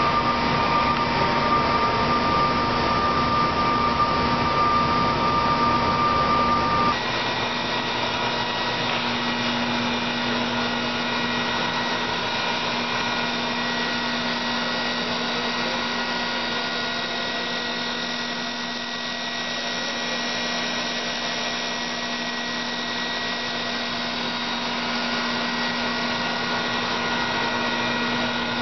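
Steady whirring of a small motor running continuously. About seven seconds in, its pitch changes and it gets slightly quieter, then it runs on evenly.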